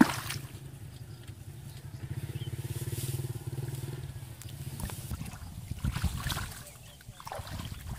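A small engine runs steadily with a fast pulsing hum, then stops about halfway through. After that come irregular splashes and sloshing as feet and hands work through shallow muddy water.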